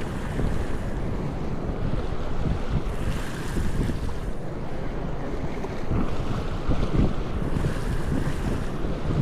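Wind buffeting the microphone over the wash of ocean surf, with the hiss of waves swelling twice.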